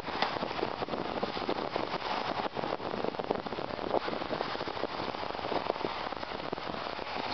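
Steady crackling hiss of strong wind and choppy surf on the camera's microphone, full of tiny irregular clicks.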